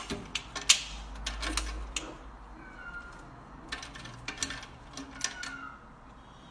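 Sharp metallic clicks and rattles as a cat paws and pulls at the metal latch on its wire cage door, in two runs of quick clicks with a pause between them.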